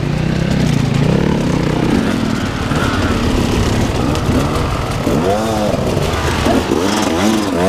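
Dirt bike engines running on an enduro trail. From about five seconds in, the revs swing up and down several times in quick succession.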